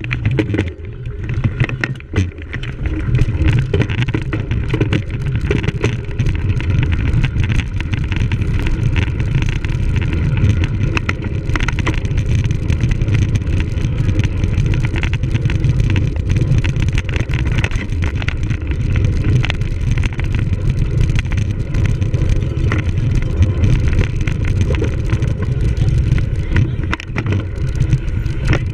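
Riding noise from a cyclocross bicycle on a rough course: a steady low rumble of wind and motion on the microphone, with frequent rattles and clicks from the bike jolting over the ground.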